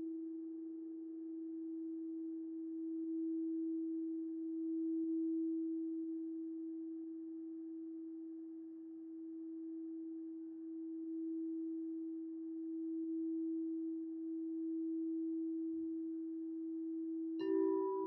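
Quartz crystal singing bowls ringing: one bowl holds a single steady low tone that slowly swells and eases, while a second, higher tone fades away in the first moment. Near the end another bowl is struck and rings in with a brighter, chiming attack.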